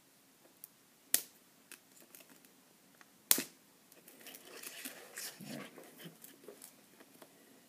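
Two sharp clicks of a small pry tool against the iPhone 5's housing, then a few seconds of scratchy crackling as the battery is pried up off its adhesive.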